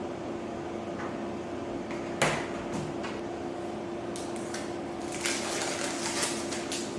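Things being handled: a sharp knock about two seconds in, then light clattering and clicking near the end, over a steady hum.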